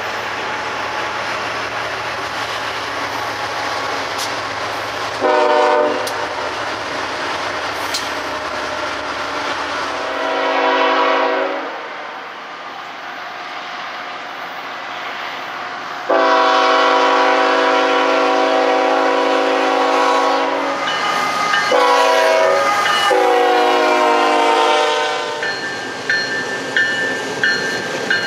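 Freight trains with diesel locomotives passing on the rails, with a steady rolling rumble, and their multi-chime air horns sounding: short blasts about five and ten seconds in, then a longer series of long and short blasts from about sixteen to twenty-five seconds. Near the end, a steady ringing with regular strikes, such as a grade-crossing bell.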